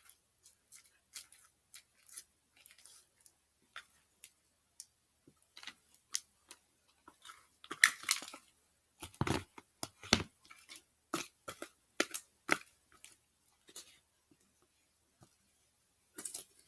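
Sticky slime being scraped out of a plastic container into a plastic bowl and squished by hand: a run of small irregular clicks and crackles, with louder ones about eight and ten seconds in.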